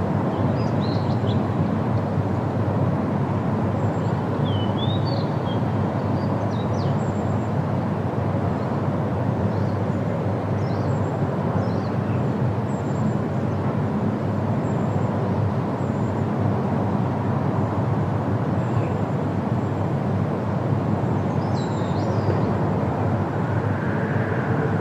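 The Rhine Falls' water roaring steadily, a constant rushing rumble, with a few faint high chirps over it.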